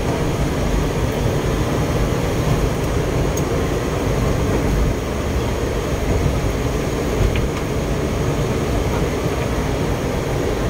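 Steady noise inside a moving car in heavy rain: rain on the car and tyres on the wet road over the engine's low rumble.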